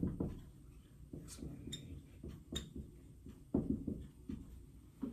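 Dry-erase marker writing on a whiteboard: short scratchy strokes with a few brief high squeaks of the felt tip, and a couple of dull bumps, one at the start and one about three and a half seconds in.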